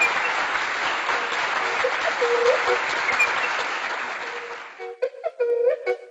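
Applause over music with a few short woodwind-like notes, the applause fading out about five seconds in; sparse clicks and short pitched notes follow near the end.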